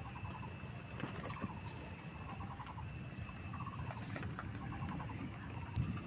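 Insects shrilling steadily at a high pitch, with a short pulsed chirp repeating about once a second over a low rumble.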